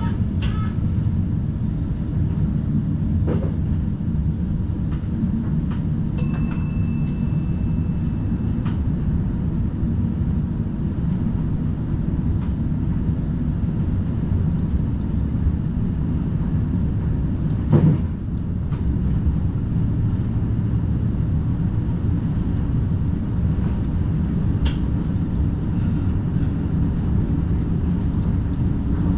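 NS DDZ double-deck electric Intercity train running along the line, heard from the driver's cab: a steady low rumble with occasional short clicks. A short electronic beep sounds about six seconds in, and there is a single louder knock a little past halfway.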